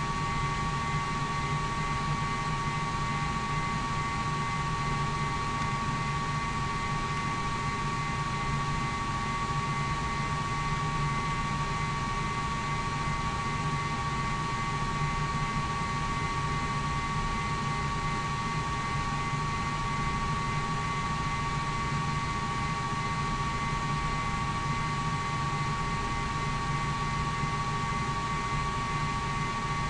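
Steady, unchanging hiss with a constant high whine and a low hum, and no separate events.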